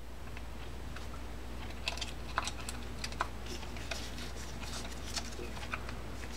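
Small irregular clicks and taps of metal fishing-reel parts being handled and fitted together during reassembly of a Shimano Corsair baitcasting reel, over a steady low hum.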